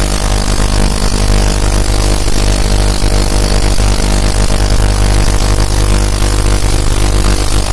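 Small ultrasonic cleaner running with eyeglasses in its water bath: a loud, steady buzzing hum with a hiss above it.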